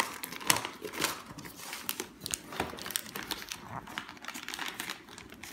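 Wrapping paper crinkling and crackling as it is folded and pressed tight around a box, with many sharp irregular crackles.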